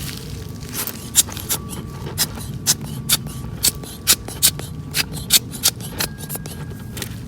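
Small scissors snipping: a run of quick, sharp clicks at about two a second, over a steady low background hum.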